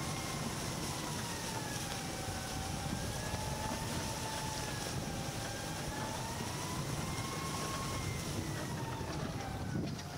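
Small utility vehicle driving across a grass field: a steady low rumble with a thin whine that slowly rises and falls in pitch as its speed changes, with wind over the microphone.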